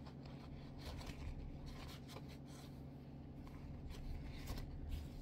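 Light, irregular scratchy rubbing as a straight razor is wiped clean of polishing residue with an alcohol wipe and a dry cloth, over a steady low hum.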